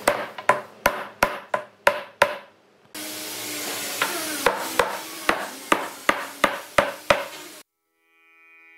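Hammer blows struck at a steady pace of about three a second, in two runs separated by a gap of about two seconds; the hammering cuts off suddenly near the end.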